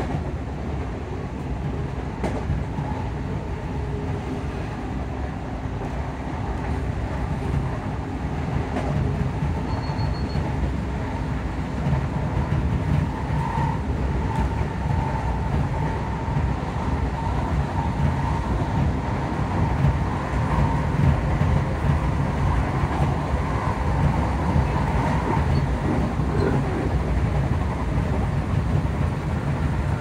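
Class 334 Juniper electric multiple unit heard from inside the passenger saloon, running at speed: a steady low rumble of wheels on rail under the drone of the traction motor cooling fans. A faint whine wavers in pitch from about a third of the way in, and the whole sound grows slightly louder.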